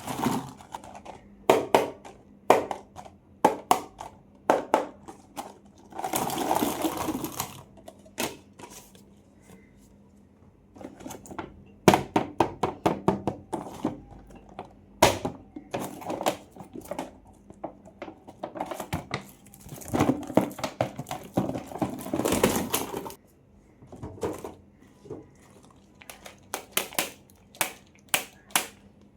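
Candy packaging being handled and unwrapped: a quick run of sharp clicks and taps of plastic and foil, with two longer stretches of crinkling and tearing, one a few seconds in and one about two-thirds of the way through.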